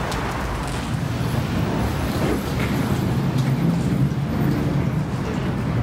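Road traffic at the terminal curb: a steady low rumble of vehicle engines, heavier in the middle.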